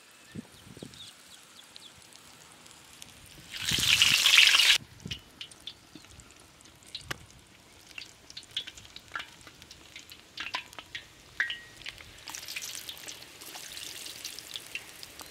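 Chicken liver cutlets deep-frying in hot oil in an iron kadai. There is a loud burst of sizzling for about a second, about four seconds in, then scattered crackles, then steady sizzling from about twelve seconds on.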